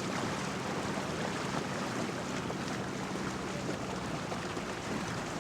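Motorboat under way: a steady engine hum under a constant rush of water and wind noise.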